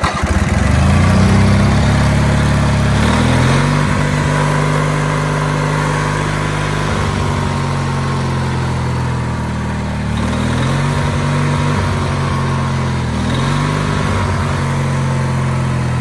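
Sawmill's gasoline engine fires up and revs up over the first few seconds as the throttle linkage, newly repaired with a piece of copper wire, kicks it up in RPM. It then runs steadily at high speed, dipping briefly twice in the last third.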